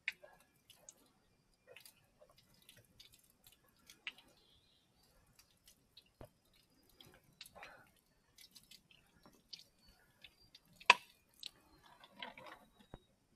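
Scattered drips and small plastic clicks as a plastic water bottle is held under a spring-fed pipe to fill, with one sharper click about eleven seconds in.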